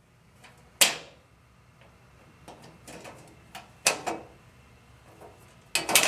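Latch and access door of a Furrion tankless RV water heater being handled as the door is unlatched and lifted off its frame: a sharp click about a second in, lighter ticks and a couple of knocks around the middle, and more clicks near the end.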